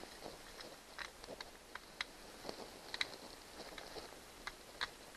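Irregular light metallic clicks and ticks as a stainless steel kayak track screw and its adapter are handled and turned by hand through a PVC pipe arm.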